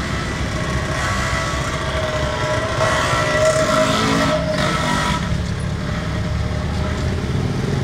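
Steady low rumble of street traffic, with a motor vehicle's engine note rising and fading about three to five seconds in.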